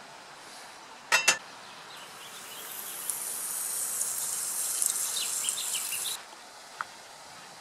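Two sharp clicks about a second in, then pancake batter sizzling in a hot frying pan: a high hiss with small crackles that swells and cuts off suddenly about six seconds in.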